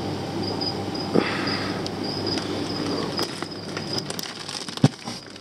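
Water-filled plastic fish bags being handled: a knock about a second in, crinkling and crackling of the plastic, and a short thump near the end. Under it runs a steady low hum and a high, on-off chirping.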